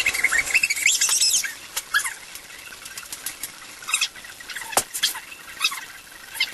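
Sped-up, reversed recording of a boy's angry shouting, heard as a jumble of high-pitched squeaks and chirps. It is dense and loud for the first second and a half, then thins to scattered short squeaks, with a sharp click just before five seconds in.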